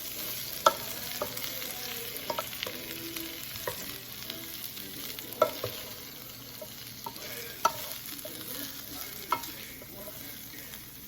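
Green beans and sausage sizzling in a frying pan as they are stirred, with irregular sharp clicks of the utensil knocking the pan.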